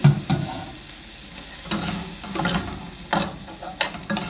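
Metal spatula and spoon scraping and clinking against a stainless steel pan as stir-fried pork and vegetables are tossed, in a series of irregular strokes, the first the loudest. Food sizzles faintly underneath.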